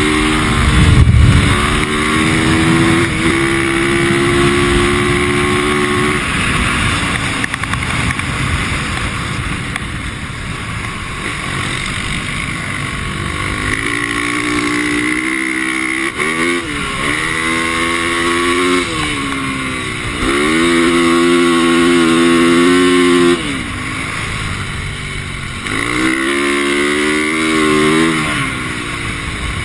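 450cc four-stroke single-cylinder dirt bike being ridden hard on ice, its engine pitch climbing under throttle and dropping off several times as it slows and accelerates again. There is a loud low rumble about a second in.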